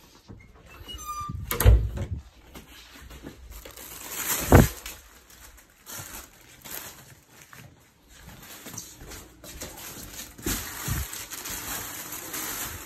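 Plastic grocery bags being handled and rustling, with two loud thumps, one near two seconds in and one at about four and a half seconds.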